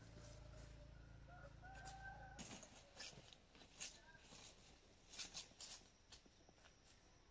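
Faint, distant rooster crowing over a low hum in the first two seconds, then scattered light crackles of footsteps on dry leaves and twigs.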